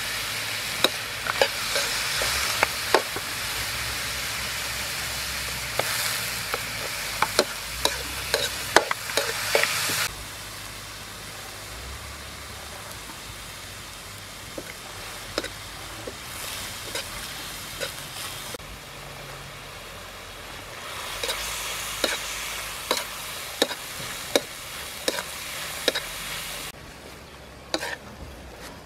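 Snails in their shells stir-frying in a metal pan: a steady sizzle with sharp clicks as the metal spoon and the shells knock against the pan during stirring. The sizzle drops about ten seconds in, comes back about twenty-one seconds in, and falls away again near the end.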